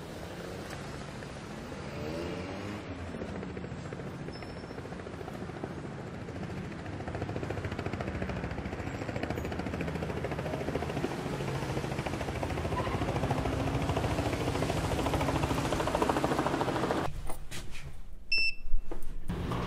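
City traffic ambience, a steady noisy rumble that slowly grows louder and cuts off abruptly about 17 seconds in. A few sharp clicks and knocks follow near the end.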